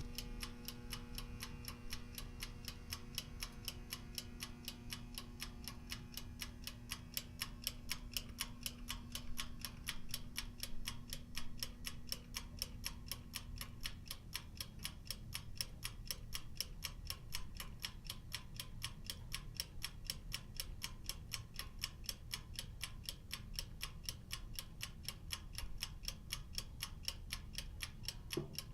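Oven timer ticking with a rapid, even tick as it counts down, over a low steady hum that stops about halfway through.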